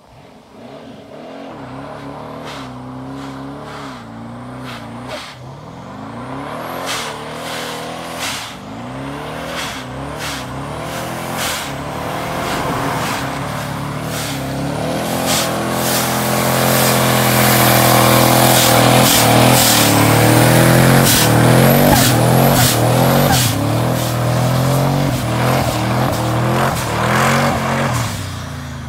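Twin-turbo Ford Ranger pickup under hard acceleration, its rear tyres spinning and smoking in a burnout. The engine revs up and down again and again with sharp bursts in between. It grows steadily louder as the truck approaches, is loudest as it passes, and fades near the end.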